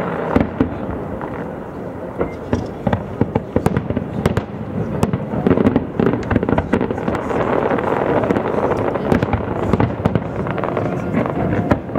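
Fireworks display: aerial shells bursting in a rapid, irregular series of bangs that comes thicker from about two seconds in, over a continuous din between the reports.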